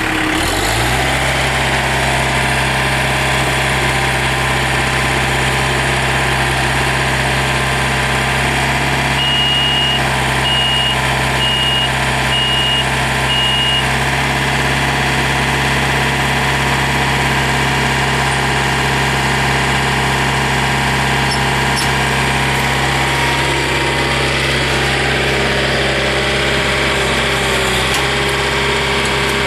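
Yanmar diesel engine of a 2006 John Deere 110 tractor loader backhoe running. Its pitch drops about a second in, then it runs steadily.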